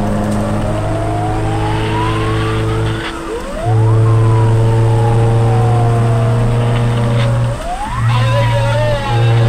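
A fire truck's siren heard from inside the cab, wailing in slow rising and falling sweeps. Under it runs a loud, steady low hum that breaks off briefly twice.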